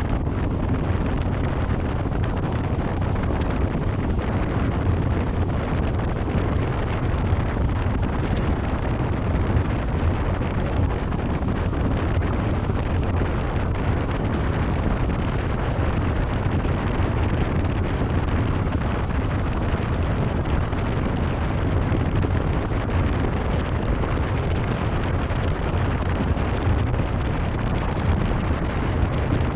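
A 26-foot Cheetah Wildcat deck boat running at high speed, about 50 to 64 mph. Wind buffets the microphone in a steady rush, mixed with engine and hull-on-water noise, and the level holds even throughout.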